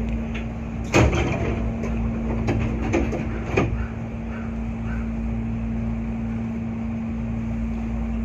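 Hankyu 8300 series train standing at a station: sliding doors thumping shut, with sharp knocks about a second in and again around three and a half seconds in, over the steady hum of the stationary train.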